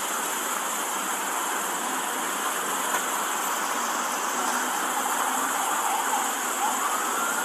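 Steady hissing street noise with vehicles running, picked up by a body-worn camera's microphone. Near the end a single high tone glides up and holds.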